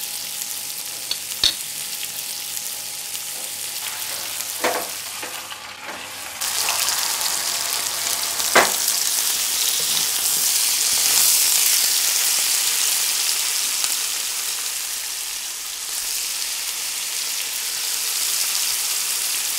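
Surmai (kingfish) steak shallow-frying in oil with garlic and curry leaves in a nonstick pan: a steady sizzle with a few sharp pops. The sizzle grows louder about six seconds in.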